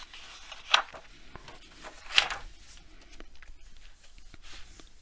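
Thick braille paper rustling as the pages of a braille book are handled, with two sharp rustles about a second and a half apart and a fainter one near the end.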